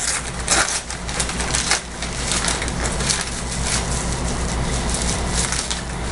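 Wrapping paper crinkling and tearing as a gift is unwrapped, a dense, continuous run of crackles.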